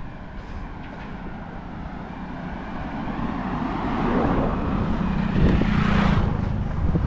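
Wind rumbling on the microphone of a moving scooter. A car passes close by: its tyre and engine noise swells from about three seconds in, is loudest around five to six seconds, then falls away.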